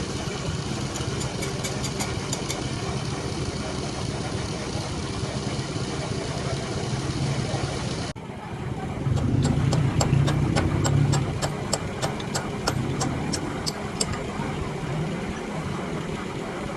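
A machine running steadily with a low hum and a regular ticking. The sound cuts off abruptly about eight seconds in and resumes louder for a couple of seconds.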